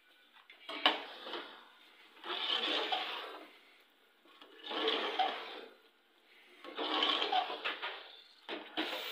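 Metal spoon stirring thick gajar ka halwa with khoya in a large metal pot: five scraping strokes about two seconds apart, with clicks of the spoon against the pot.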